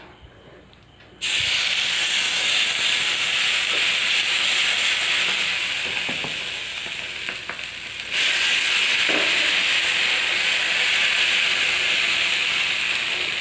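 Coconut-and-rava rotte dough sizzling on a hot tawa as it is laid down and pressed flat by hand. The sizzle starts suddenly about a second in, eases a little in the middle, and grows louder again about eight seconds in.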